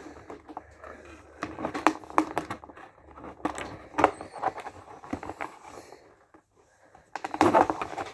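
Plastic blister packaging being handled and cut with scissors to free a toy figure: crinkling and rustling with many irregular sharp clicks, a short pause about six seconds in, then louder rustling near the end.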